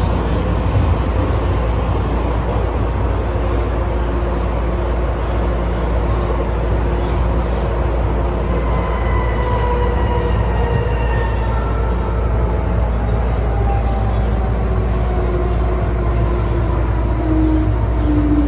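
MTR M-train electric multiple unit running in a tunnel, with a steady low rumble of wheels and car body. From about six seconds in, a faint set of whines slides steadily down in pitch as the train slows under braking. This is the car's 'ghost squeal' (鬼叫) under braking, not very strong on this car.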